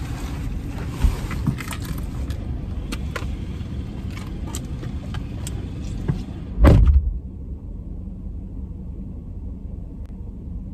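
A car's passenger door left open as someone climbs out, with small clicks and rustles over a steady low rumble, then the door slammed shut with one loud thump about two-thirds of the way through.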